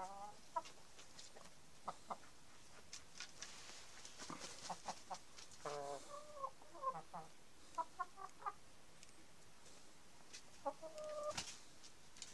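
Chickens clucking in short pitched calls, several groups of them spread through, mixed with scattered sharp clicks and taps.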